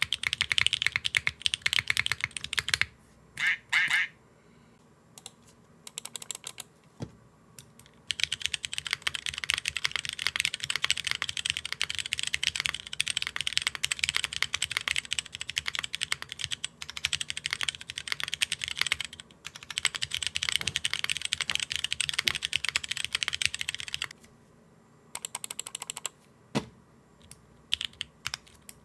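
Continuous typing on a Neo65 mechanical keyboard with tactile switches, a dense run of keystroke clacks. First HMX Light Tactile prototype switches, then, after a pause of a few seconds about three seconds in, Cherry MX Brown switches. A second short pause comes near the end, followed by a few scattered keystrokes.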